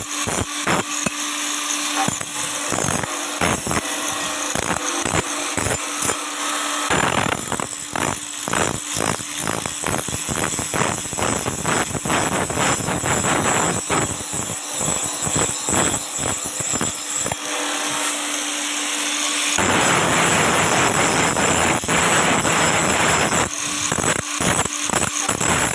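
A power tool running on the metal of an axe: a steady motor hum under rapid, irregular rasping contacts. The rasping becomes heavier and more continuous about seven seconds in and again near twenty seconds.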